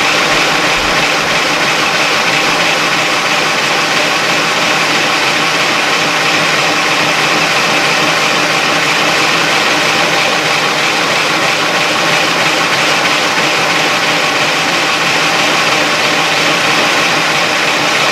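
Power Wheels ride-on toy car held in a burnout: its electric drive motors and gearboxes run flat out in a steady whine as the drive wheels spin in place on the pavement.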